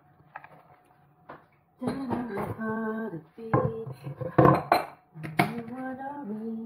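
A metal spoon clinking against a glass bowl and a few sharp knocks on the counter, the loudest about halfway through. A woman's voice hums held notes in between.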